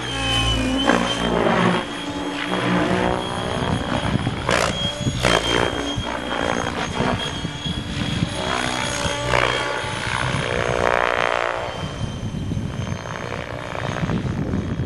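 Mikado Logo 600 XL electric radio-controlled helicopter in flight. Its rotor and motor sound slides up and down in pitch again and again, over a thin steady high whine.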